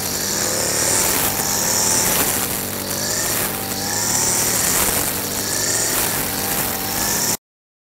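A Wild Badger 52cc two-stroke trimmer engine running at high speed while cutting grass, its pitch sagging and climbing back again and again. The sound cuts off abruptly near the end.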